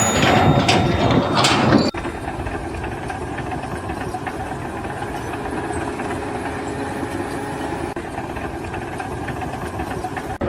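A louder, busy stretch of noise for about two seconds, then after a sudden cut an engine running steadily.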